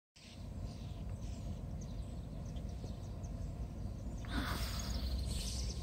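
Low steady rumble of outdoor trackside ambience with faint bird chirps, and a brief rushing hiss about four seconds in.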